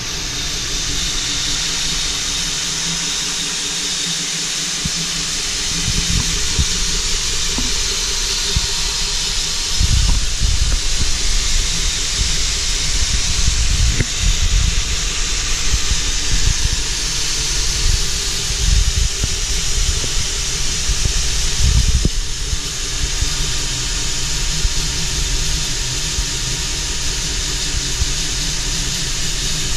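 Electric-motor belt grinder running with its abrasive belt hissing steadily over a faint motor whine, with occasional low thumps.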